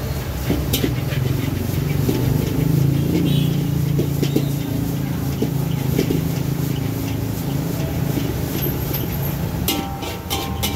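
A metal spatula scraping and clanking against a steel wok as fried rice is stirred, with a few sharp strikes that come quicker near the end. Under it, the steady low hum of engine noise from traffic.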